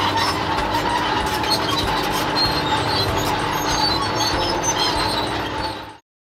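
Steady mechanical rumble and clatter, like a vehicle sound effect, with a couple of steady tones running through it. It cuts off suddenly just before the end.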